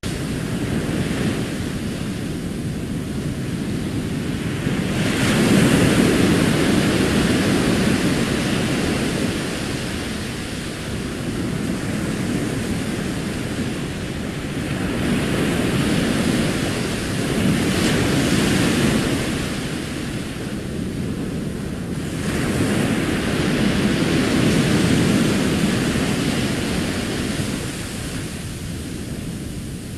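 Recorded ocean surf washing onto a sandy beach: a steady wash of water noise that swells three times as waves break and run up the shore.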